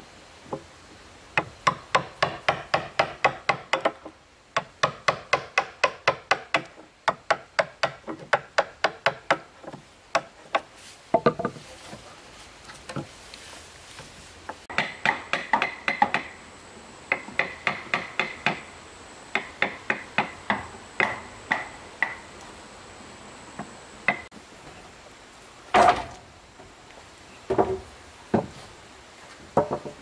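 Rapid hammer blows on wood, about four or five a second, in runs of a few seconds with short pauses between. A few heavier single knocks come near the end.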